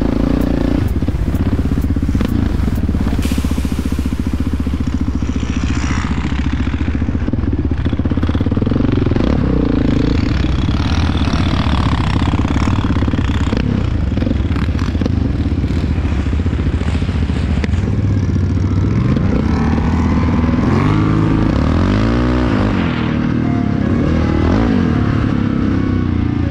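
Yamaha Raptor 700R quad's single-cylinder engine running hard as it is ridden, loud and steady, its pitch rising and falling several times with the throttle near the end.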